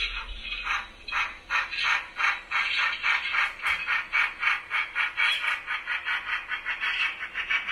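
Sound decoder in a Dapol Terrier model steam tank engine playing steam exhaust chuffs through its small onboard speaker. The chuffs are regular and even, quickening from about three a second to about six a second.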